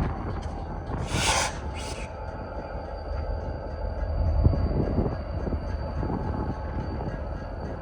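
Diesel locomotive running light, with a steady low engine rumble. About a second in come two short hisses, and the rumble swells briefly past the middle.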